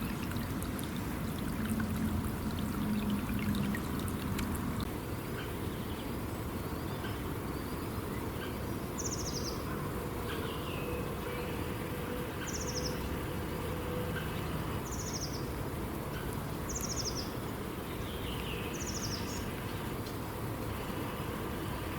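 Steady rushing of flowing river water, with a bird repeating a short, high call about every two seconds through the middle of the stretch.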